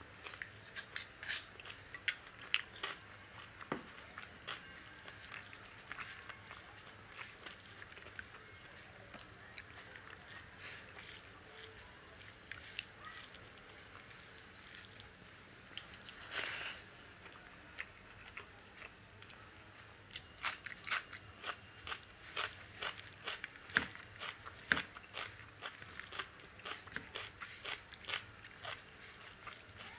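Close-up mouth sounds of eating dal and rice: wet chewing and many short lip-smacking clicks. The clicks come thick at first, thin out through the middle, and crowd together again in the last third.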